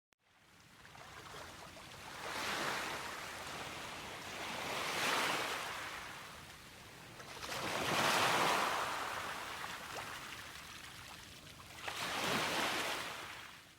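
Small sea waves washing onto the shore, a soft rushing hiss that swells and falls back about four times. It fades in from silence just after the start and fades out near the end.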